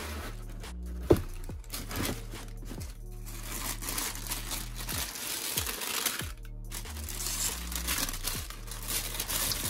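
Tissue paper crinkling and rustling as it is unfolded from around a pair of sneakers in a cardboard shoebox, with background music and a steady bass line underneath. A single sharp thump about a second in.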